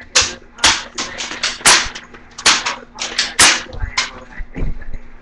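Toy gun firing a quick, irregular run of sharp cracks, about ten shots in five seconds.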